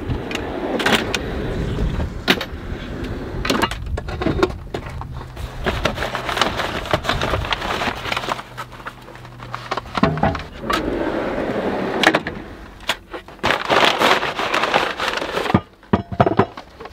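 Crumpled packing paper rustling and crackling as hands dig through it inside a wooden drawer, with scattered clicks and knocks from the drawer and its metal slides. The sound dips briefly near the end.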